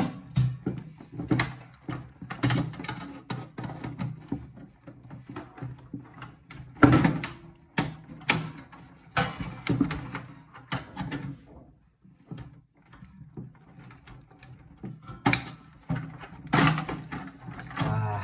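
Irregular clicks, knocks and scraping of pliers working at a metal PC case, prying and pulling a component loose.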